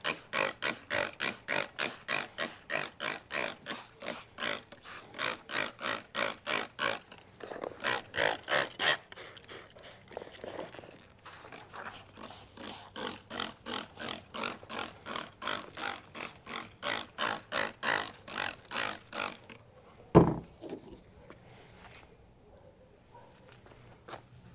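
Hand trigger spray bottle squirting isopropyl alcohol in rapid pumps, about three squirts a second, with a few short pauses. The spraying stops shortly before a single loud thump near the end.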